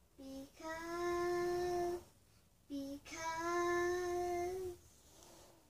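A young girl singing alone, with no accompaniment: two phrases, each a short note followed by a long held note.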